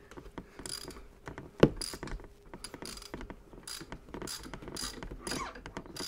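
Hand ratchet with a T45 Torx bit clicking in short runs as the lower fork clamp bolts are backed off, with one sharper knock about a second and a half in.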